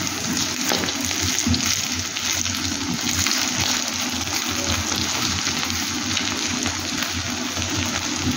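Eggs frying in hot oil in a pan: a steady sizzle with fine crackling pops throughout.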